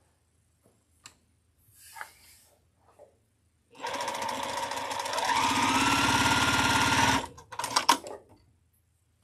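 Juki electric sewing machine stitching for about three and a half seconds, speeding up partway so its whine steps up in pitch, then stopping. A little fabric handling comes before it and a few sharp clicks come just after it stops.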